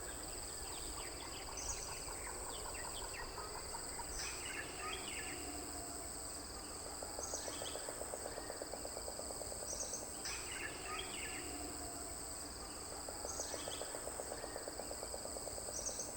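Forest dawn chorus: a steady high-pitched drone of insects at two pitches, with short bird calls scattered through and, three times, a rapid pulsing trill that runs for a few seconds each time.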